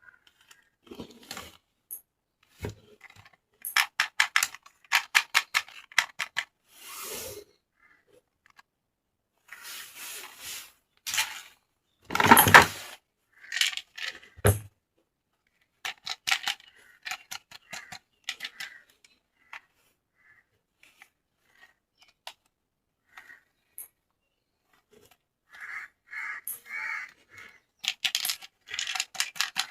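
Hard plastic toy parts and packaging handled close to the microphone: scattered clicks and clatters, with a quick run of clicks about four seconds in and short rustles in between.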